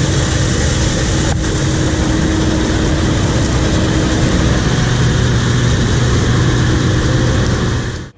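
Case IH 2388 axial-flow combine running as it cuts canola, a loud steady drone of its diesel engine and threshing machinery with a low hum. It fades out near the end.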